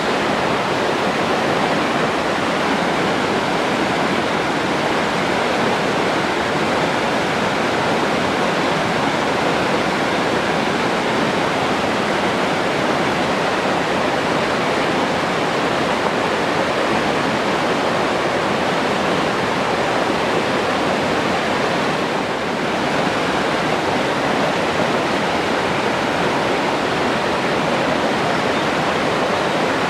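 Forest stream's flowing water: a steady, even rush of running water.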